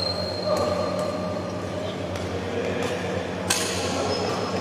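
Badminton rally: rackets strike the shuttlecock several times, the sharpest hit about three and a half seconds in, ringing briefly in the hall. Brief high squeaks, typical of court shoes on the floor, come just after the start and again near the end.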